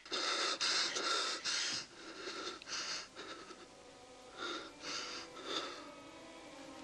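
A wounded man breathing hard and ragged in pain: a quick run of heavy breaths at first, then a few separate gasps spaced about half a second apart.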